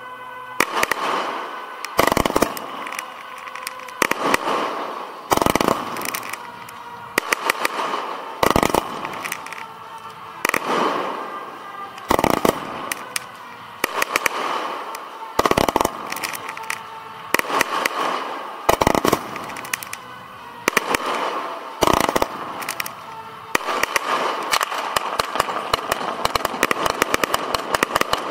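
Display fireworks firing at close range from ground launch racks: sharp bangs about every one and a half to two seconds, each followed by crackling. Near the end they merge into a dense, rapid barrage of shots and crackle.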